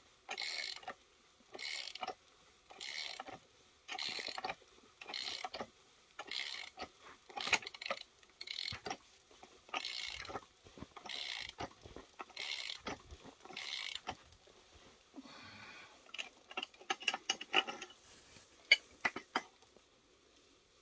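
Socket ratchet clicking in a dozen even strokes, about one every second and a quarter, as it tightens the forcing bolt of a supercharger pulley installer tool, pressing the pulley onto the shaft. After about 14 seconds the strokes stop, and lighter scattered metallic clicks and taps follow.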